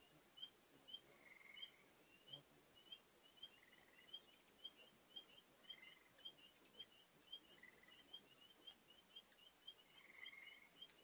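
Hummingbirds chirping at crowded feeders: short, faint chirps repeating about three times a second, with a buzzier call every couple of seconds. A low, steady hiss of running water from a spring lies under them.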